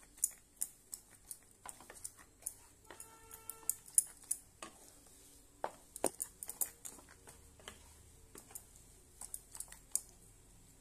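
Flat spatula scraping and tapping against a nonstick pan while stirring a thick, crumbly semolina and coconut mixture: a run of irregular light clicks and scrapes.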